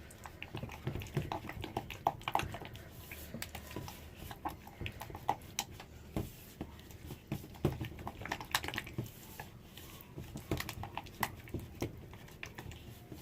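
Spatula stirring thickening cold process soap batter in a mixing container, with irregular small clicks and taps of the utensil against the container.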